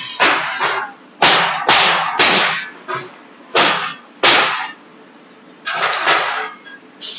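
Gas-shielded (MIG/MAG) welding arc on carbon steel, struck by a welding robot in short bursts: about nine noisy spurts, each starting suddenly and lasting a fraction of a second, with uneven gaps between them.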